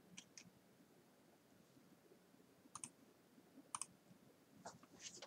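Faint computer-mouse button clicks, several of them, mostly quick double ticks of press and release, over near silence.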